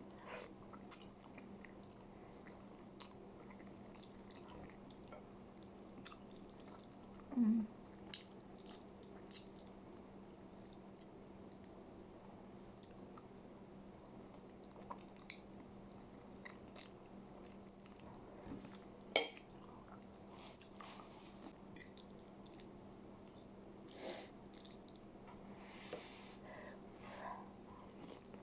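Close-up eating sounds of someone chewing pasta: soft mouth noises and scattered small clicks over a faint steady hum, with a short pitched sound about seven seconds in and a sharp click a little after halfway.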